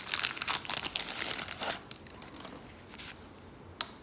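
Wax-paper wrapper of a 1988 Topps baseball card pack being torn open and crinkled for about two seconds. The handling then goes quieter, with a short rustle about three seconds in and a sharp tap near the end.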